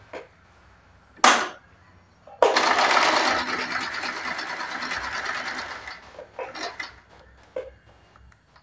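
Small electric sewing machine stitching: a short burst about a second in, then a straight run of stitching for about three and a half seconds before it stops.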